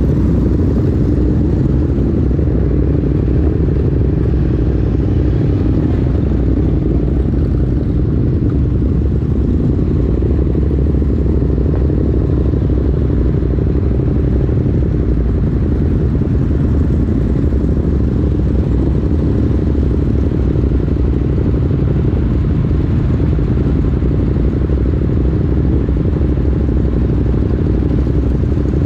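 Ducati Monster's L-twin engine running at a steady speed, with an even, unchanging note and no revving.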